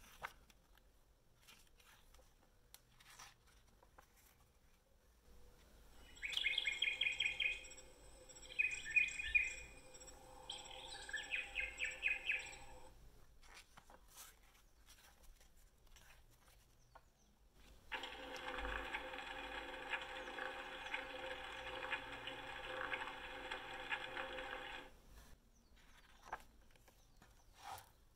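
Animal recordings played from a sound book's small built-in speaker: first three bursts of high, rapid chirping, then after a pause with page rustling, about seven seconds of a steady frog chorus, croaking. Soft clicks of the pages and buttons come between them.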